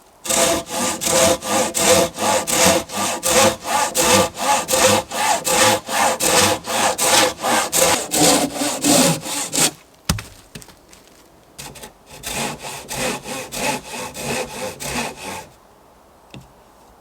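Hand saw cutting through wood in quick, even back-and-forth strokes, about two to three a second. The sawing stops about ten seconds in and resumes more lightly for a few seconds before stopping again.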